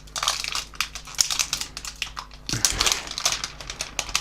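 Packaging crinkling and rustling as a phone is handled out of its box, with small clicks and a duller knock about two and a half seconds in.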